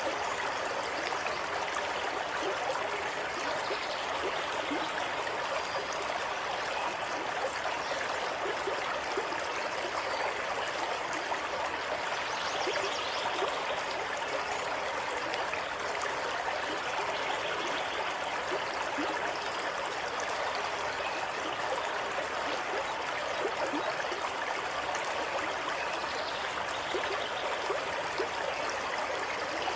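Running water flowing and babbling steadily, with many small splashes and gurgles throughout.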